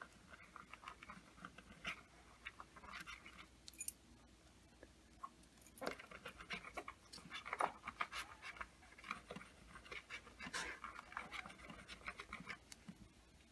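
Metal key scraping back and forth across a tempered-glass screen protector under increasing pressure, in faint, irregular scraping strokes. There is a short pause about four seconds in, and the strokes come thicker in the second half. This is a scratch test, and it does leave scratches on the glass.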